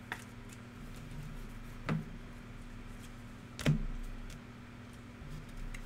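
Light knocks and handling noise as trading-card boxes and packs are picked up and set down on a table, four short knocks with the loudest a little past halfway, over a steady low hum.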